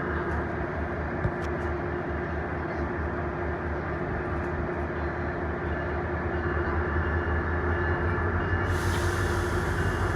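Metrolink commuter train with its diesel locomotive running, giving a steady hum and rumble. Near the end a hiss joins in and the sound grows a little louder.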